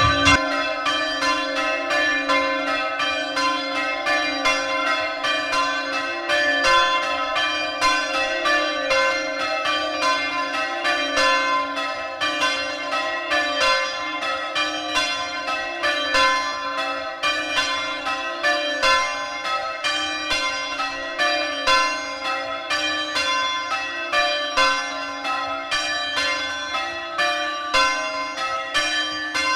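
A ring of three Mears church bells, tenor in C, rung full-circle in an even, unbroken run of strikes. Heard loud from the ringing room directly below an uninsulated belfry.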